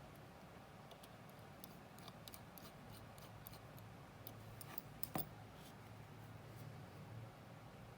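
Faint clicks and taps of small watchmaker's tools on watch parts, scattered through, with one sharper click just after halfway.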